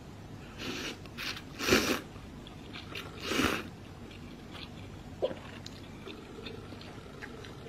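A person slurping instant ramen noodles in four short hissy bursts, the loudest about two seconds in, followed by soft eating sounds with a few small clicks.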